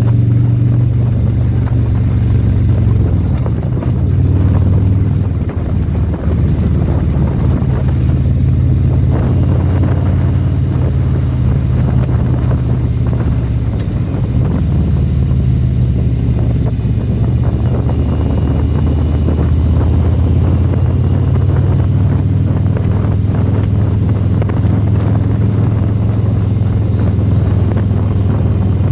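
Motorcycle engine running steadily at road speed, its low note shifting slightly a few times, with wind rushing over the microphone.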